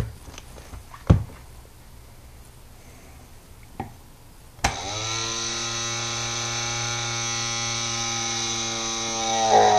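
A few clicks from a multimeter's rotary dial being turned, then, with a click about halfway through, a small electric motor spinning a diametrically magnetized cylinder magnet starts up: a steady buzzing hum whose pitch rises briefly as it spins up, getting louder near the end.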